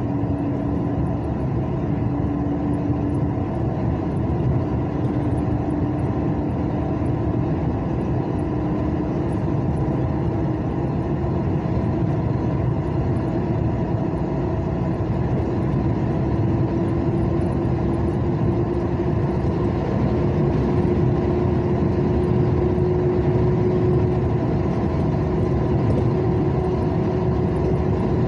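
Vehicle driving along a highway: steady engine and tyre noise with a hum that slowly rises in pitch.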